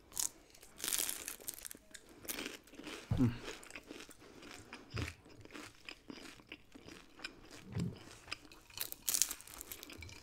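Close-miked crunching and chewing of a fried lumpia (spring roll), its crisp wrapper crackling with each bite. The biggest crunches come about a second in and again near the end.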